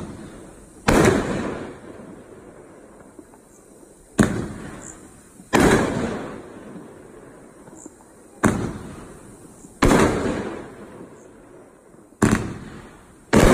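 12-shot consumer fireworks cake firing slowly, about one shot every four seconds: a sharp bang of each shell leaving its tube, then a second bang of the aerial break about a second and a half later, each trailing off. Seven bangs in all.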